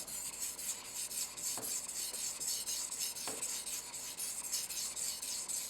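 Santoku knife's hammered Damascus steel blade being worked back and forth on a whetstone at the tip: a steady rasping scrape of steel on stone, with a faint knock twice.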